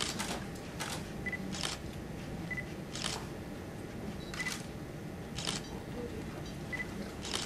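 Still cameras photographing: about seven shutter clicks at uneven spacing, most of them just after a short high autofocus-confirmation beep, over a low room murmur.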